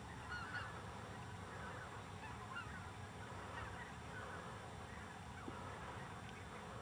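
A distant flock of geese honking: many faint, short, overlapping calls over a low steady background rumble.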